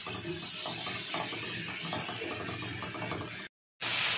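A spatula stirring and scraping long beans and tomato in a frying pan with a little water, at about four or five strokes a second. Near the end the sound cuts out briefly, and a louder, steady sizzling hiss from the pan follows.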